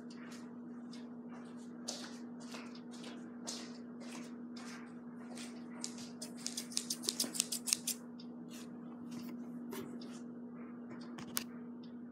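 Plastic blister packaging of an MP3 player being cut and worked open: short crisp snips and rustles about twice a second, a quick run of a dozen clicks past the middle, and one sharp click near the end, over a steady low hum.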